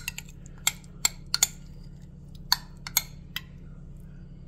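A metal spoon clinking and tapping against a glass measuring cup while scooping egg-and-mozzarella chaffle batter: about eight sharp clinks at irregular intervals.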